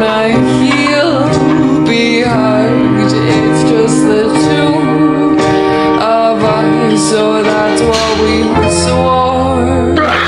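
Slowed-down, reverb-heavy song: a sung vocal line without clear words over plucked strings, with a deep bass coming in near the end.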